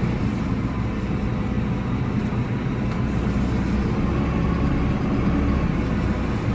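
Massey Ferguson 5711 tractor engine running at a steady speed as the tractor moves slowly.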